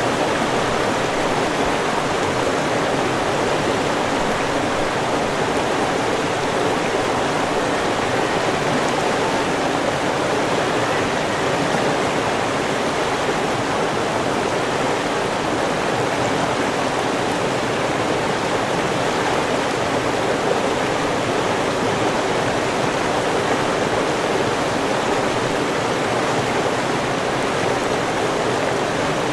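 River water flowing and rushing over stones, a steady, even rush without breaks.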